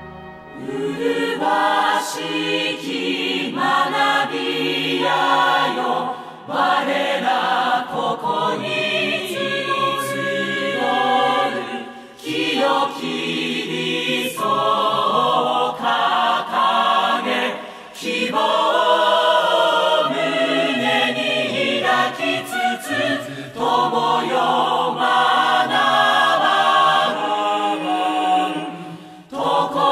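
Musical-theatre chorus singing a slow, hymn-like school anthem in Japanese, phrase by phrase with short breaks between lines.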